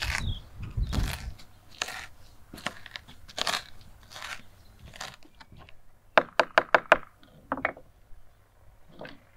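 Wooden pestle pounding and crushing sliced green chili peppers in a wooden bowl, one stroke roughly every second. About six seconds in comes a quick run of about eight sharp knocks.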